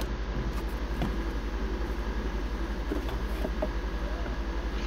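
A steady low hum with a slight regular pulsing, and a few faint clicks as the plastic air intake duct is handled and lifted out of the engine bay.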